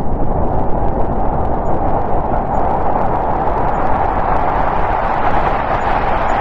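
Strong snowstorm wind blowing steadily: a dense rushing noise with a deep rumble and a hollow midrange tone that grows a little stronger near the end.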